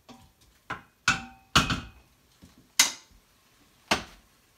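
A spoon knocking against the stainless steel inner pot of an Instant Pot while deglazing: about five sharp, separate clanks, some with a brief metallic ring.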